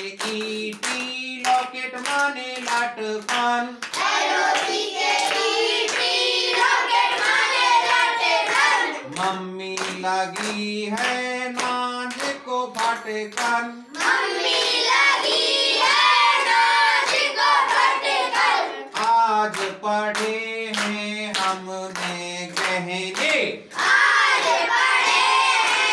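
A man and a group of children sing a classroom rhyme together while clapping hands in a steady rhythm, about two claps a second.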